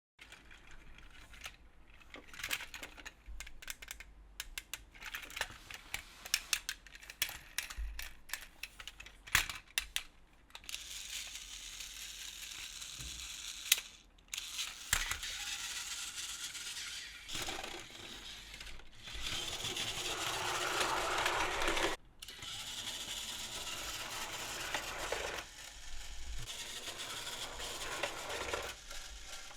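Battery-powered Plarail plastic toy trains running on plastic track: a clatter of small clicks and rattles for the first ten seconds or so, then a steadier running noise that breaks off and starts again abruptly a few times.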